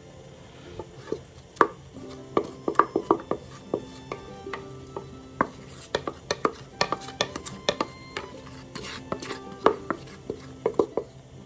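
A utensil knocking and scraping against a metal mixing bowl as cake batter is cleared out of it: an irregular run of sharp taps and clicks, in quick clusters.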